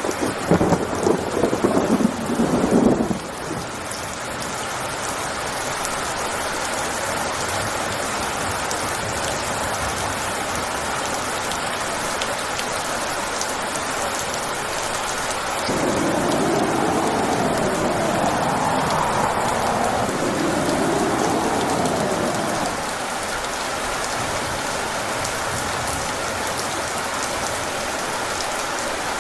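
Steady heavy rain hissing, with a loud rumble of thunder in the first three seconds. About halfway through, a louder stretch of about seven seconds comes in with wavering rising-and-falling sweeps, then the rain settles back.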